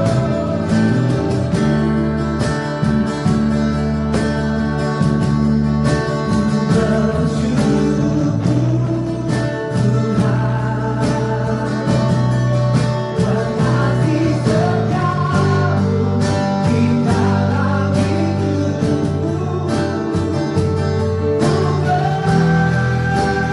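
Worship song: singing over guitar accompaniment, playing steadily.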